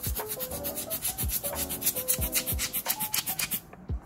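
Background music: an electronic beat with a deep falling kick drum, quick even hi-hat ticks and a synth melody. It drops out briefly near the end.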